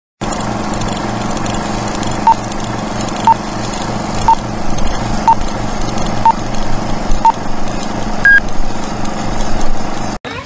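Old-film countdown leader sound effect: a steady hum and crackle with a short beep once a second, six times, then a single higher-pitched beep.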